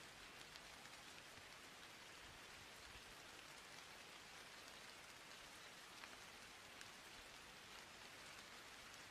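Near silence: a faint, steady hiss with a few small ticks.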